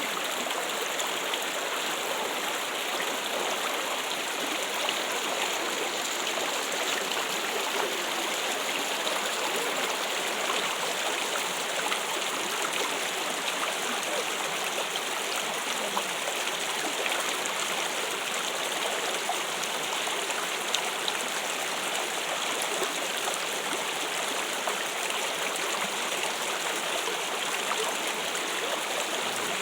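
Water trickling and running steadily, a continuous even splashing of flowing water.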